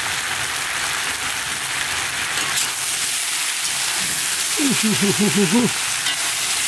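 Beef liver and vegetables sizzling in a frying pan, a steady hiss. About two-thirds of the way through, a short wavering voice-like sound rises over it for about a second.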